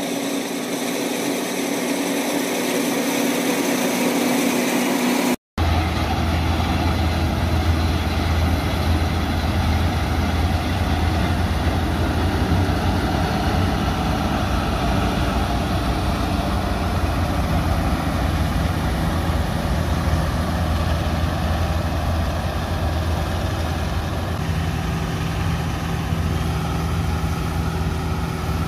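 Deutz-Fahr M 2385 combine harvester running steadily at work, engine and machinery giving a continuous hum. A cut about five seconds in drops the sound out for an instant, and after it the hum is deeper and stronger.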